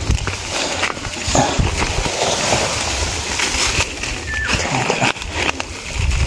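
Rustling and crackling of dry leaves and cassava stalks as a hand grips and breaks the stalks close to the microphone, over a low rumble. A short high tone about four seconds in.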